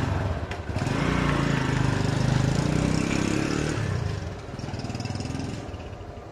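A small vehicle engine running and revving, then fading away about four seconds in as the vehicle drives off.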